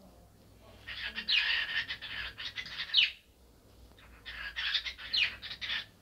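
Cockatiel chattering and warbling in two bursts of about two seconds each, full of quick whistled pitch sweeps.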